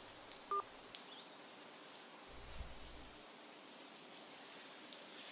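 Quiet outdoor ambience with faint bird chirps and a soft rustle, broken by a short, clear beep about half a second in.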